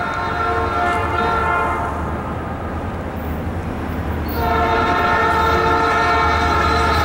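Norfolk Southern SD40-2 locomotive's air horn sounding a chord as the train approaches: one blast fades out about two seconds in, then a louder, long blast starts about four seconds in, over a low steady rumble.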